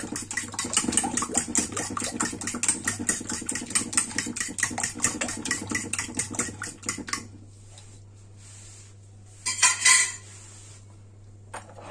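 A fork beating an egg mixture in a stainless steel bowl: rapid, rhythmic clinking and scraping against the metal. It stops about seven seconds in, and a short louder clatter follows a couple of seconds later.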